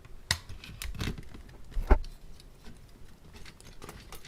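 Light clicks, taps and rattles of a small circuit board and plastic case parts being handled as the main board is taken out of a weather-station display unit, with one sharper knock about two seconds in.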